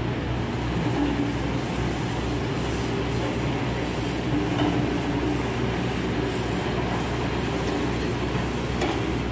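Heavy rain pouring down as a steady, dense hiss, with a low steady rumble underneath.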